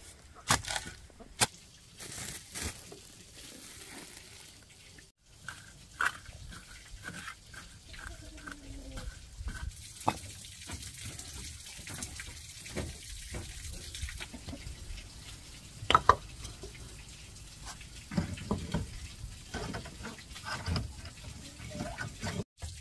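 A hoe chopping and scraping into dry soil, then perforated clay bricks knocking and scraping against each other as they are stacked by hand, in irregular single knocks with the loudest in the middle.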